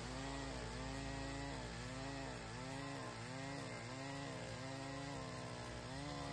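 Stihl two-stroke chainsaw cutting through a log, its engine pitch dipping and recovering about every two-thirds of a second as the chain loads in the wood.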